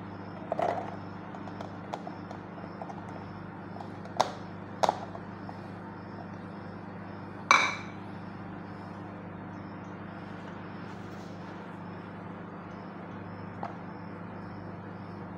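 A handful of sharp clinks and taps as sweet corn kernels are tipped into a thin plastic cup on a tabletop, the loudest about halfway through, over a steady low hum.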